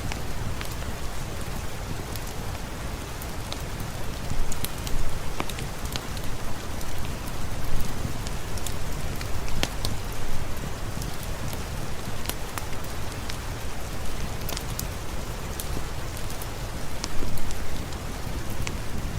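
Steady rain hissing, with a fireplace crackling: scattered sharp pops and snaps over the even wash of the rain.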